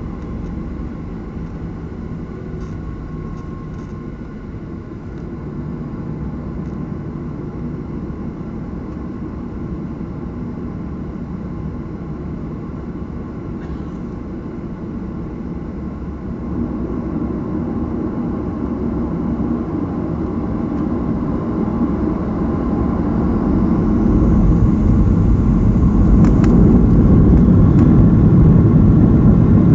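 Boeing 737 jet engines heard from inside the passenger cabin as a steady rumble that grows louder about halfway through and again near the end, as the engines spool up toward takeoff thrust.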